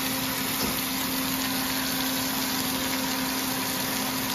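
Chili peppers sizzling as they stir-fry in a large wok, over a steady machine hum.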